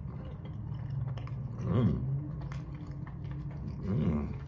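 A person eating makes two short closed-mouth "mm" hums, about two seconds apart, each rising and falling in pitch, over a steady low hum.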